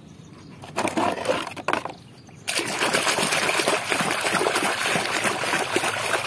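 Muddy water splashing and sloshing as a hand scrubs a plastic toy locomotive under the surface: a few short splashes, then continuous splashing from about two and a half seconds in.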